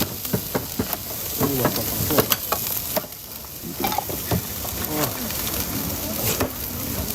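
Food sizzling as it fries on a hot cooking surface, with a metal utensil clicking and scraping against it many times at an uneven pace.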